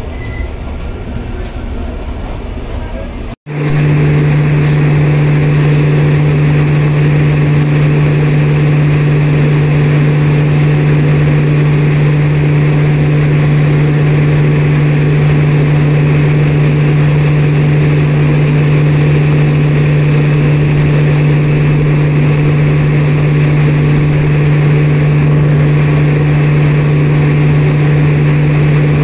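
After a cut a few seconds in, a heavy train engine hums loudly and steadily at one unchanging low pitch, with no rail clatter.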